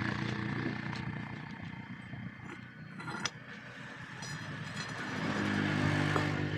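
An engine running, its hum fading toward the middle and building again near the end, with one sharp click about three seconds in.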